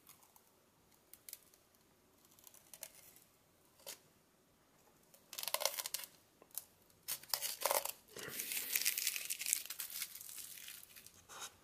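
Protective plastic film being peeled off the front panel of a UNI-T UTP305 bench power supply, crackling as it comes away. Faint scattered clicks at first, then a few short pulls from about five seconds in, and a long steady peel of about two and a half seconds near the end.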